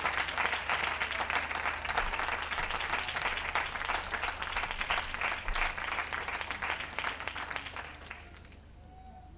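Ringside audience applauding, a dense patter of many hands clapping that dies away about eight seconds in.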